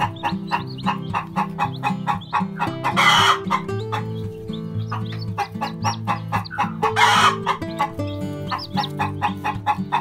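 Chickens clucking over background music, with two short harsh squawks about three and seven seconds in.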